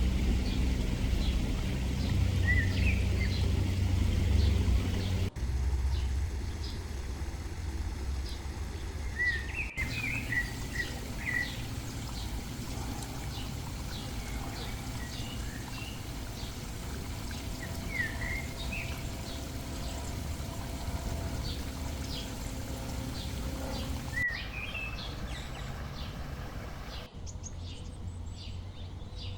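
Small birds chirping and calling in short notes throughout, over a steady low background noise that is heavier in the first five seconds. The background changes abruptly several times.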